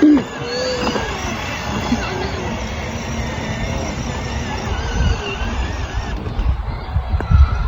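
Kids' 12V electric ride-on car driving, a steady low rumble of its wheels rolling over the ground, with a few louder bumps.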